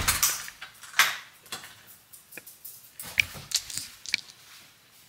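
A scatter of light knocks and clicks from someone moving about a small room, the loudest about a second in, thinning out near the end.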